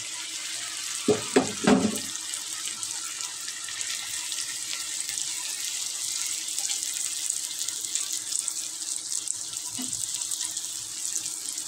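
Fried okra in an onion-tomato masala sizzling steadily in hot oil in a pan. A few short knocks come about a second in, as the okra is moved about with a spatula.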